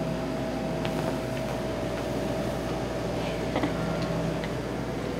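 Steady mechanical room hum with a few faint, short clicks.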